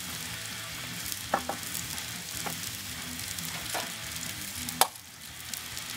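Sliced onions sizzling in a cast-iron skillet, a steady crackling hiss with a few sharp pops, the loudest near the end.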